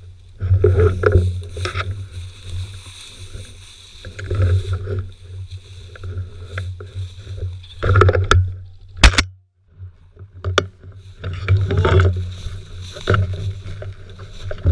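Dry grass and brush swishing against a hunter walking through tall cover, with low rumbling bumps on the gun-mounted camera's microphone in bursts every few seconds. A sharp knock about nine seconds in is the loudest sound.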